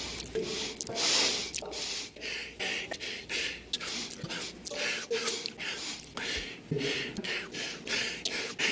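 A man sniffling and breathing heavily: a quick run of short sniffs and breaths, about two a second.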